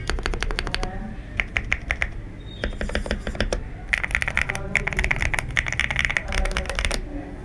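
Typing on an Akko ACR67 mechanical keyboard with Akko Jelly Pink linear switches: quick runs of key clacks in bursts, with a couple of short pauses.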